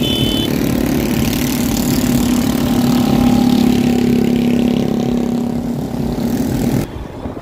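An engine running with a steady hum over a wide hiss of road traffic noise. The sound changes abruptly near the end, where the hiss drops away.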